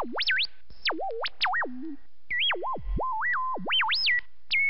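Synthesized whistle-like tone swooping up and down in pitch, several glides a second, with a short break about two seconds in; one swoop dives very low near the three-second mark.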